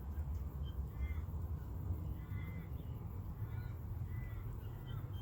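A bird calling outdoors, a handful of short calls that rise and fall in pitch, roughly one a second, over a steady low rumble.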